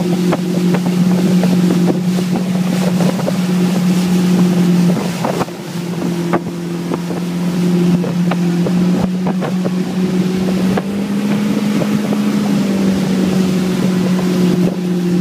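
Motorboat engine running at a steady speed while towing, with the wake churning and splashing behind the boat and wind buffeting the microphone. The engine note drops briefly about five seconds in, then picks back up.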